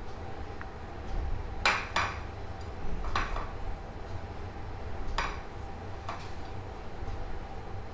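Dry shredded samosa-sheet strips crackling and rustling as a hand presses them onto a piece of marinated chicken on a ceramic plate: about five short, crisp rustles with light knocks against the plate.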